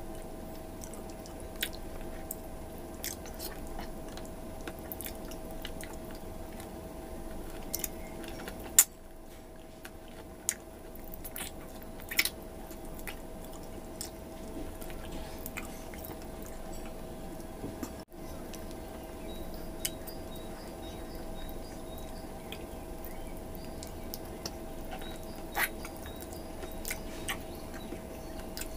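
Close-up chewing and biting on bone-in stewed beef (balbakwa) eaten by hand, with scattered sharp clicks, the loudest about nine seconds in, over a faint steady hum.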